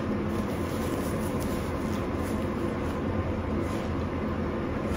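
Steady background noise: a low hum with a hiss over it, unchanging, with no distinct event.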